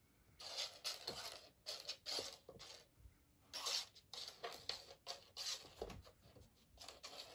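Turkish Van cat batting a hairpin across a laminate floor: a run of quick, irregular scratching and skittering as its claws and the pin scrape the floor, starting about half a second in.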